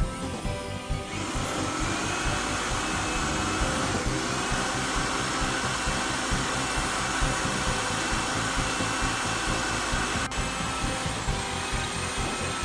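An electric power tool motor running steadily, starting about a second in, over background music.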